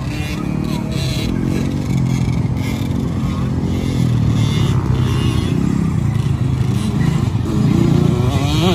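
Two small kids' dirt-bike engines, among them a Honda CRF110's single-cylinder four-stroke, running on the track and getting louder as the bikes come closer, with one revving up in a rising whine near the end.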